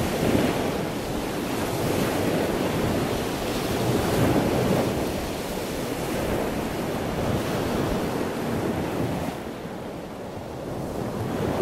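Small ocean waves breaking and washing up a sandy beach, rising and falling in loudness, with a low rumble of wind on the microphone underneath.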